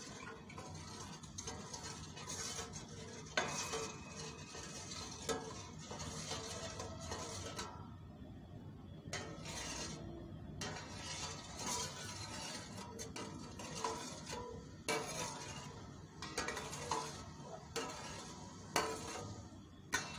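A metal spoon stirring simmering coconut milk in a metal pot, with irregular clinks and scrapes against the pot's sides and bottom. The stirring keeps the sugar and salt dissolving as it heats.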